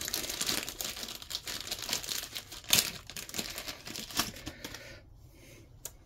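Crinkling and rustling of something being handled off to one side, broken by sharp clicks, the loudest about three seconds in and another about four seconds in. It dies down near the end.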